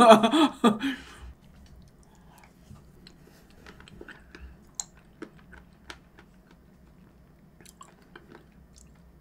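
A short laugh, then soft eating sounds for the rest of the time: small scattered clicks of a wooden spoon in a bowl of shaved ice with soybean powder and red beans, and quiet chewing.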